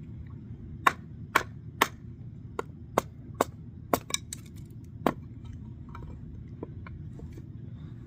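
Kindling being chopped: about ten sharp strikes on wood in quick succession, several close together around the four-second mark, then a few fainter knocks as the pieces are handled. A steady low rumble runs underneath.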